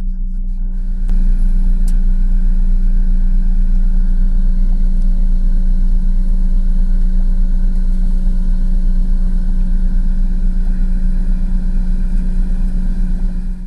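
An engine running steadily, a constant low hum with no change in pitch.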